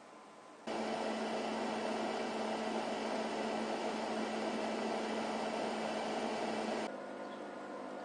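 Two 80mm 12V computer case fans running steadily, blowing air with an even whir and a low hum. The sound starts abruptly loud about a second in and drops abruptly to a quieter whir near the end.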